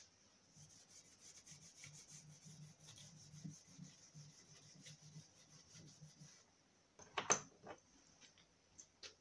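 Faint, quick back-and-forth rubbing of a paper towel wiping clean the joint face of a BSA C15 aluminium crankcase half, about five strokes a second. The rubbing stops, then come a couple of sharp knocks about seven seconds in and a click near the end.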